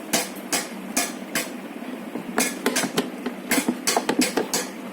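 Irregular sharp clicks and taps, a dozen or so in quick clusters, from hands and tools working the plastic forward/reverse switch of a 12V ride-on toy jeep and its wire connectors.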